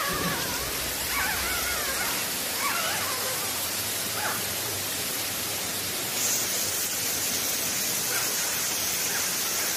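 Steady hiss of heavy rain. Over it, a few faint, high, wavering squeaks from newborn puppies in the first four or five seconds.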